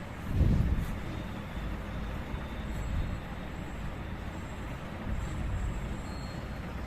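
Steady low background rumble, with a brief louder swell about half a second in.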